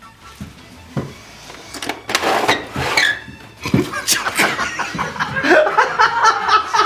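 Laughter: it breaks out about two seconds in and builds into quick, choppy bursts that are loudest near the end.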